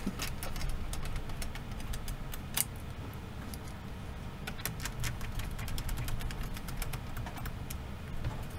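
Small laptop screws being set in place and driven with a screwdriver through a heatsink shroud into the fan and heatsink mounts: scattered light clicks and ticks, one sharper click about two and a half seconds in, over a low steady hum.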